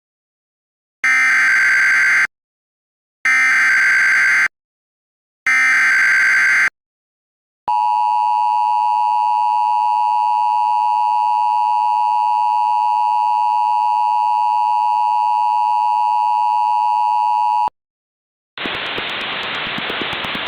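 Emergency Alert System tones: three identical screechy digital data bursts (the SAME header), each about a second long. These are followed by the steady two-tone EAS attention signal, held for about ten seconds and cutting off abruptly. After a brief silence, a steady hiss of radio static begins near the end.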